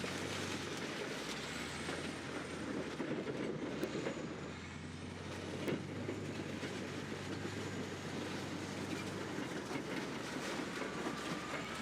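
Bulldozer's diesel engine running steadily, with its tracks clanking and scattered metallic knocks and scrapes as it drives over and crushes dirt bikes. There is one sharper crunch about six seconds in.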